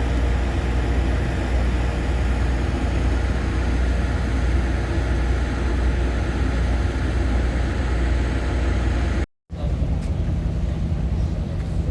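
Steady low rumble of a passenger train running along the track, heard from inside the rail car, with a brief dropout about nine seconds in where the recording cuts, after which the rumble carries on with a steady low hum.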